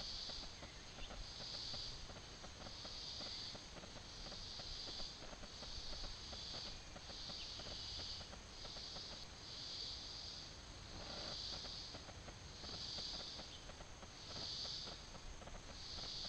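Insects calling in a regular pulsing rhythm, one high buzzing pulse about every second and a half, over a faint crackling rustle.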